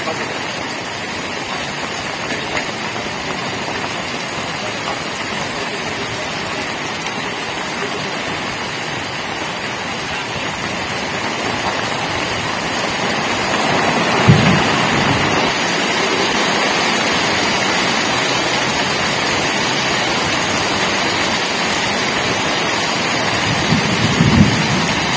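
Heavy rain pouring steadily onto the lake and the ground, growing a little louder about halfway through. Two dull bumps stand out, one in the middle and one near the end.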